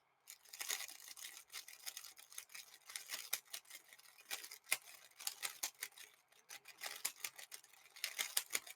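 Plastic 3x3 speedcube being turned fast, a faint, rapid, irregular clicking of its layers snapping round.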